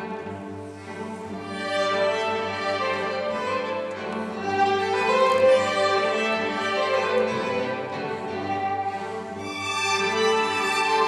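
String chamber orchestra playing a classical piece, violins bowing the melody over the lower strings, growing louder about two seconds in.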